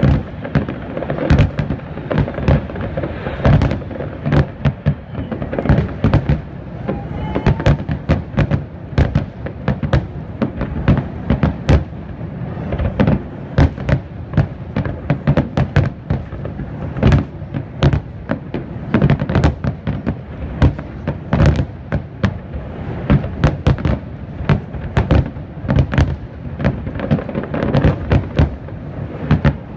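Aerial fireworks display: a dense barrage of shell bursts, several bangs a second over a continuous low rumble.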